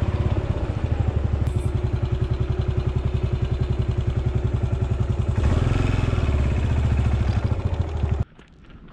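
Stock Yamaha SR400's air-cooled single-cylinder four-stroke engine running with an even, low pulsing beat, then cutting off abruptly about eight seconds in as it is switched off. A few faint clicks follow.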